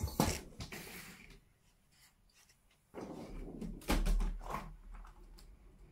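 Clicks and knocks of a room window being opened, with a short low rumble and a couple of knocks about four seconds in.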